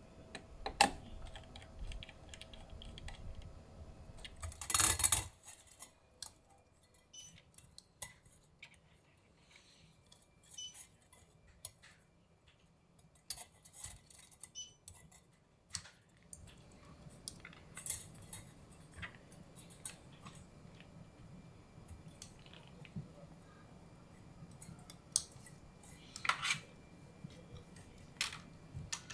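Scattered light clicks and metallic clinks of computer hardware being handled, with a louder clatter about five seconds in and a quiet stretch in the middle.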